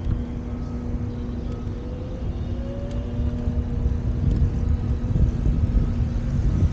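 Wind buffeting the microphone of a camera on a moving bicycle, with tyre rumble on concrete, growing a little louder toward the end. A faint steady hum runs underneath, and a brief rising tone comes about two and a half seconds in.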